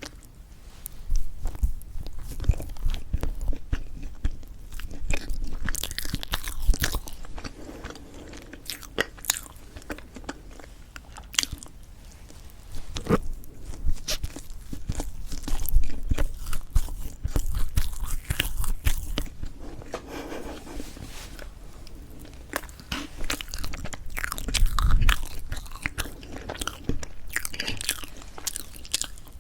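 Close-miked ASMR mouth sounds of someone eating strawberry chocolate cream cake: soft chewing, wet mouth clicks and bites in irregular bursts.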